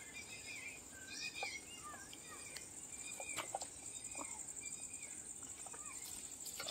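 Several birds chirping and warbling over a steady high-pitched insect drone, with a few faint clicks.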